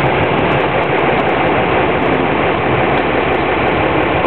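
Steady drone of a motorboat engine running, mixed with the rush of water and wind.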